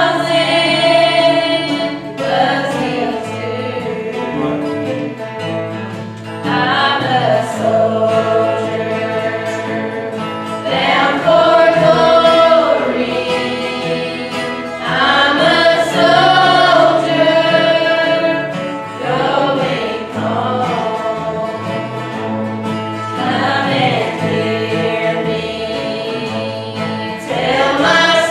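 Church choir singing a slow gospel song, long held notes swelling into new phrases every few seconds, over sustained instrumental accompaniment.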